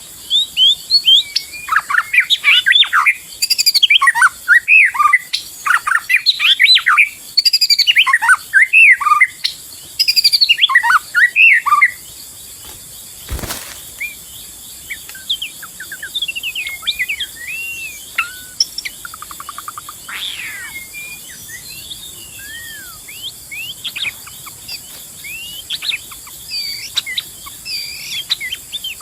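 White-rumped shama singing: a fast, loud run of varied, rich whistled phrases for about the first twelve seconds, then sparser, quieter whistles and calls. A single sharp click comes about halfway through.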